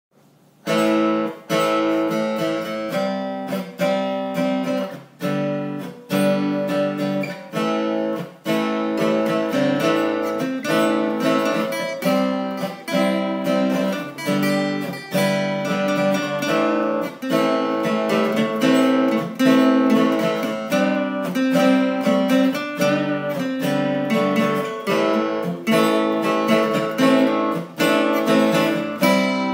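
Acoustic guitar strummed in a steady rhythm of chords, starting about a second in.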